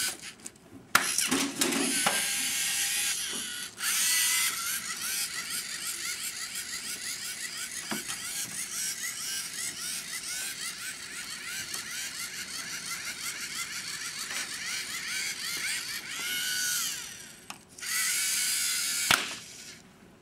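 LEGO Mindstorms NXT robot's small electric motors whirring with a high-pitched whine. Through the long middle stretch the whine breaks into a rapid, stuttering run of short pulses as the robot line-follows, steering left and right by its light sensor over black and white. A sharp snap comes about a second in and another near the end.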